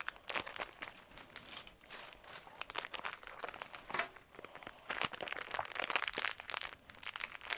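Thin plastic packaging crinkling and rustling in hand as a small Mochi squishy toy is unwrapped, an irregular stream of crackles.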